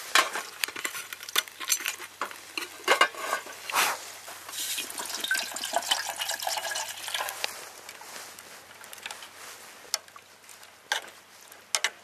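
Eating utensils and dishes clinking and knocking in quick, irregular taps, with a few seconds of steady hiss in the middle and a few last knocks near the end.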